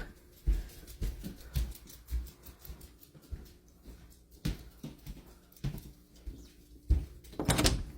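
A dog's small sounds as it moves about: scattered soft knocks and clicks, with one louder burst near the end.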